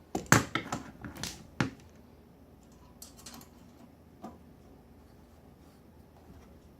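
A quick run of sharp clicks and knocks, about six in the first two seconds, from a screwdriver working at a screw in a washing machine's panel, then a few faint ticks.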